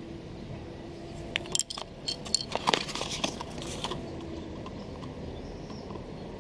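Handling noise from a small plastic washer fluid level sensor and its cardboard box: a run of light clicks and clinks starting about a second and a half in and lasting a couple of seconds, over a faint steady background.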